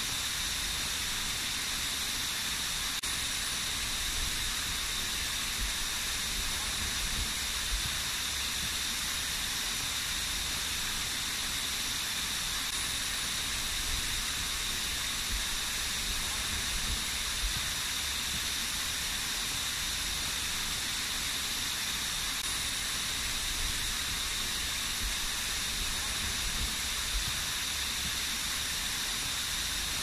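A small waterfall cascading in thin streams down a steep rock face: a steady, even hiss of falling water.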